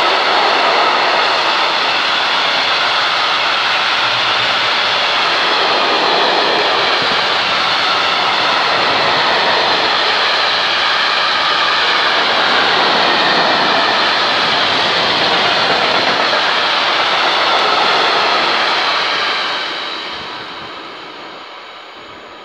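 A long freight train of gas tank wagons rolling past at speed, with steady wheel-on-rail noise. It fades over the last few seconds as the end of the train goes by.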